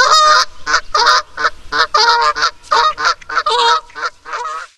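Swan honking: a rapid run of short honks, about four a second, that stops just before the end.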